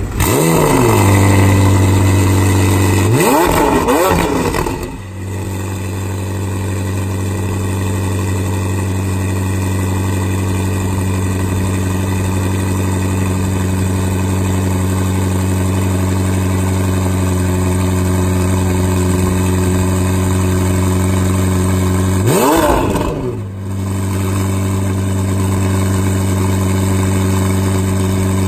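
McLaren 720S twin-turbo V8 with a Fabspeed exhaust starting up and flaring, then holding a loud fast idle. It is revved once about three seconds in and settles into a quieter, steady idle. About 22 seconds in it gets one more quick rev blip before returning to idle.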